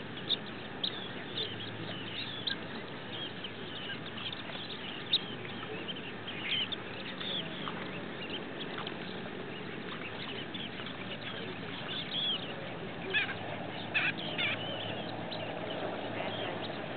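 A flock of shorebirds calling: many short, high calls overlapping over a steady hiss, growing thicker and louder about thirteen seconds in.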